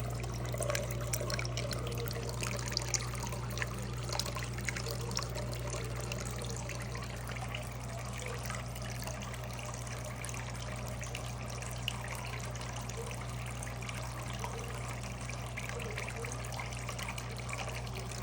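Small concrete tabletop water fountain running, water trickling and splashing steadily, with a steady low hum underneath.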